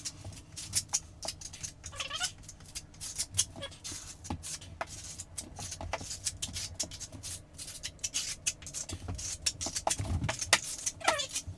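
Notched trowel scraping and slapping thick adhesive across a wall, a dense run of short scrapes and clicks, with a few brief squeaky glides in between.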